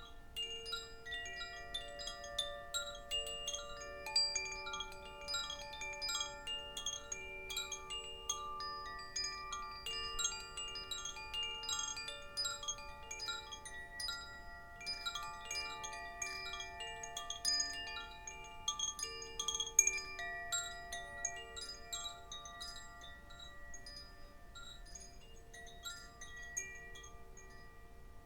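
Chimes ringing in a dense shimmer of many quick, overlapping metallic strikes whose tones ring on, thinning out over the last few seconds.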